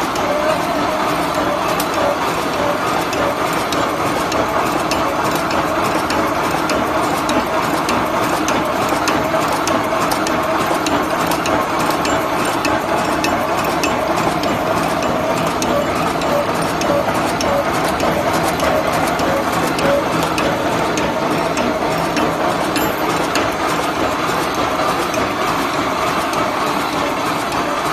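Automatic welded wire mesh roll making machine running: a steady, rapid mechanical clatter of its wire-feed and welding strokes as it welds mesh and winds it onto a roll.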